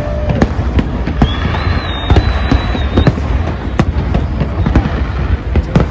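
Aerial fireworks bursting in quick succession: many sharp cracks and bangs over a continuous low rumble. A high, steady whistle sounds from about a second in and lasts about two seconds.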